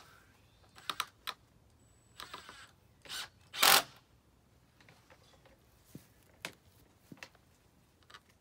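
Vinyl skirting panels and trim being handled and fitted: scattered light plastic clicks and knocks, with one louder brief noise about three and a half seconds in.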